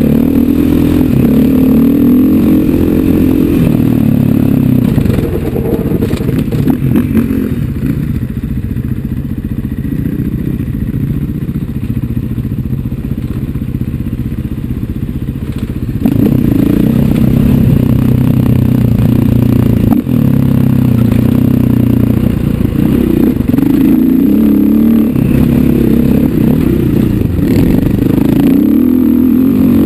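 KTM 500 EXC single-cylinder four-stroke dirt bike engine running under the rider, its pitch rising and falling with the throttle. It eases off about five seconds in and picks up again about sixteen seconds in.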